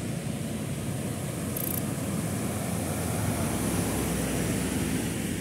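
Steady rumble of road traffic on a wet, flooded road: engines and tyres of passing vehicles, including a truck and a motorcycle.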